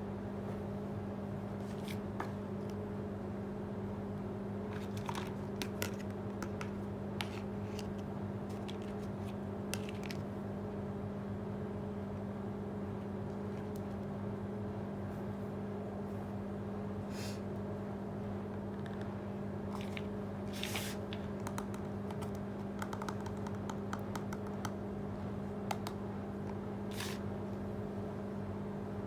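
Small plastic toy kitchen pieces clicking and scraping as they are handled, scattered taps over a steady low hum.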